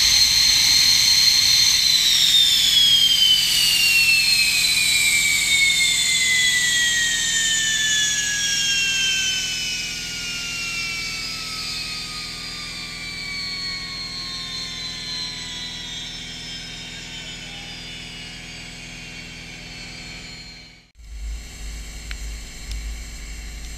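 SEPECAT Jaguar's Rolls-Royce Turbomeca Adour turbofan winding down after shutdown. A high steady whine starts falling in pitch about two seconds in and sinks slowly lower and fainter. After a sudden break near the end, only a quieter low rumble is left.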